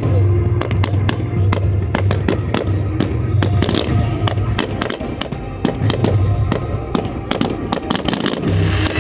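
Fireworks going off in quick, irregular succession, many sharp bangs and crackles a second, over music with a pulsing bass.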